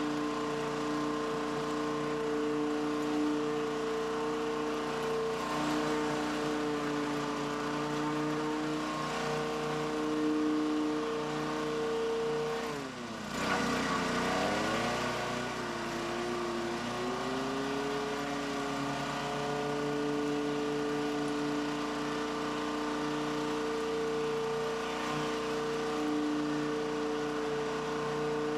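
Gas pressure washer engine running steadily. About halfway through its pitch dips sharply, then climbs back to its running speed over a few seconds.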